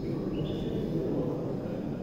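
Caged songbird giving a short, faint whistled note that steps up in pitch about half a second in, over a steady low background rumble.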